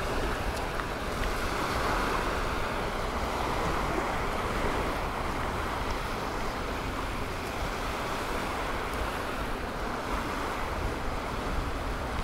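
Gulf surf washing steadily onto a sandy beach, with wind rumbling on the microphone.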